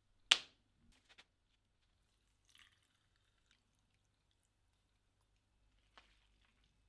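A single sharp click a moment in, followed by a few faint ticks, a soft brief rustle and one more small click near the end, with quiet in between.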